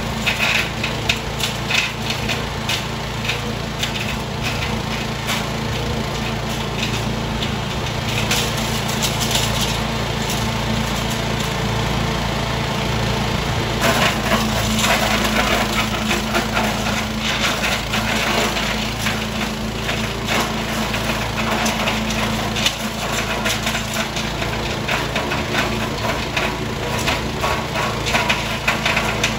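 Zenoah SR110-1 engine chipper shredder running steadily, with continuous crackling and snapping of wood being shredded, heavier from about halfway through.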